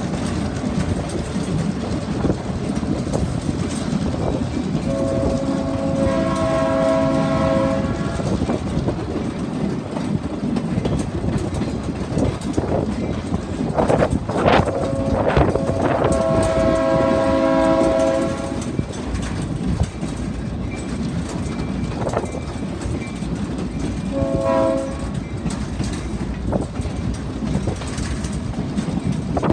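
Passing train running with steady rumble and wheel clatter, its horn sounding two long blasts and then a short one near the end, the start of a grade-crossing signal.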